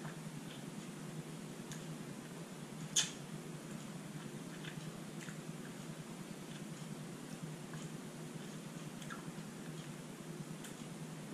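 Faint wet mouth sounds of sucking and chewing the cottony white pulp off a santol seed: small scattered clicks, one sharper click about three seconds in, over a steady low room hum.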